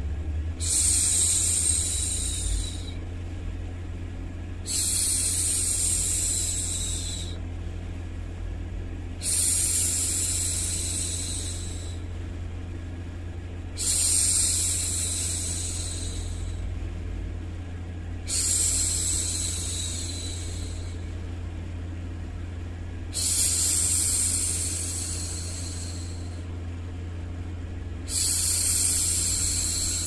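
A woman's voice making long 'shhh' hushing sounds to soothe a baby, seven times about every four and a half seconds, each about two and a half seconds long and tapering off. Underneath runs a steady low hum of background noise.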